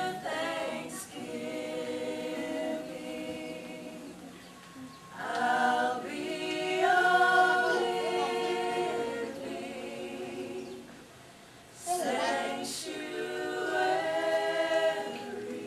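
A choir singing a cappella in long, held phrases, with short pauses about five and eleven seconds in.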